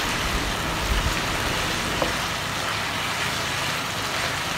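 Chicken in a thick tomato sauce sizzling steadily in a non-stick frying pan as it is stirred with a wooden spoon, with a light knock about two seconds in.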